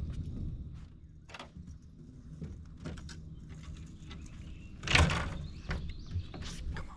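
A few scattered knocks and rattles, with one louder thump about five seconds in, over a low steady rumble.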